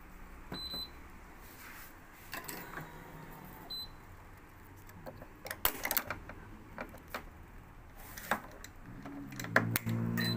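Short high beeps from an electronic badminton stringing machine, about a second in and again near four seconds, among sharp clicks and rattles of the machine's clamps and the string being handled. Music comes in near the end.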